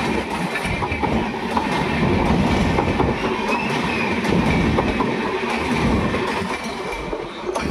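Train running past close by, its wheels clattering over the rail joints. The coaches are LHB stock of the Tejas Rajdhani Express. The sound eases slightly near the end as the last coach goes by.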